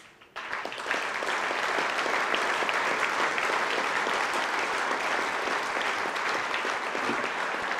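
Large audience applauding, the clapping rising quickly about half a second in and holding steady, then easing a little near the end.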